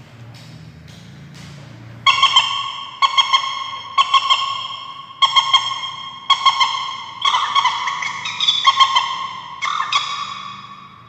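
Hunting bird-caller speaker playing a recorded bird call: a ringing call with many overtones, repeated about once a second, starting about two seconds in after a few faint clicks.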